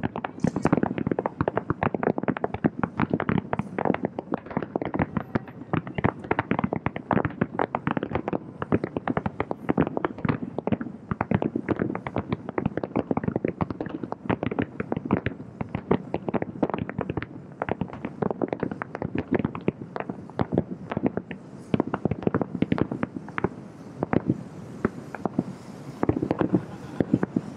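Aerial fireworks shells bursting in a rapid, continuous barrage of booms and cracks, heard from about two miles away: the grand finale of the show.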